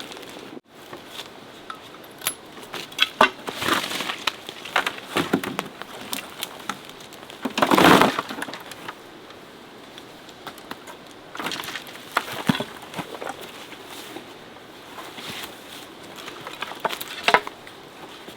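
Scattered clicks, knocks and rustles, with one louder rustling scrape about eight seconds in.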